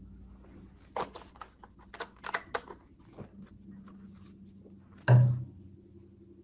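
A cluster of short, sharp clicks and taps, like keys or a mouse on a desk, then one louder dull thud about five seconds in, over a faint steady electrical hum.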